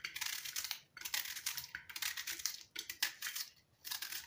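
Small kitchen knife cutting through a raw red onion held in the hand: crisp, crunchy cuts in short bursts about once a second.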